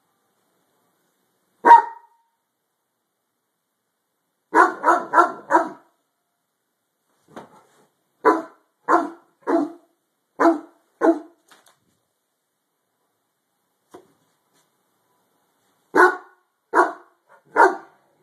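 Harlequin Great Dane barking in volleys. A single bark comes about two seconds in, then a quick run of four, then five more spaced about half a second apart, a pause of several seconds, and more barks starting again near the end.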